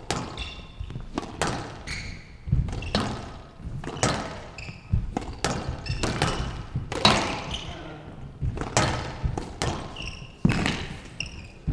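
A squash rally on a glass court: the ball is struck by rackets and hits the walls in a quick irregular series of sharp thuds, with short high squeaks from the players' shoes on the court floor between the shots.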